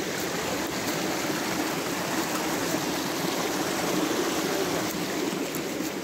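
Small shallow brook running fast over a rocky bed, a steady rush of water.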